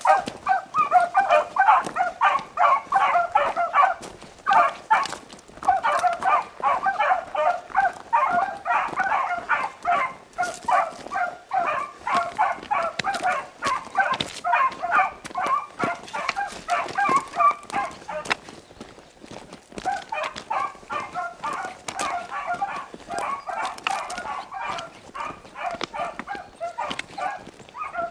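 A pack of beagles baying on a running rabbit's track, many quick overlapping barks in full cry. There are short lulls about four seconds in and again around eighteen to twenty seconds in.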